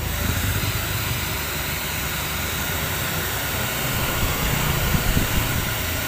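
Handheld hair dryer running steadily after a no-power repair: its fan motor hums under a steady rush of blown air. A few low gusts of air hit the microphone about four to five seconds in.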